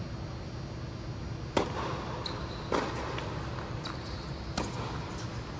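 Tennis ball being hit and bouncing on an indoor hard court: four sharp pops about a second apart, the third weaker, with short high shoe squeaks in between, over a steady low hum.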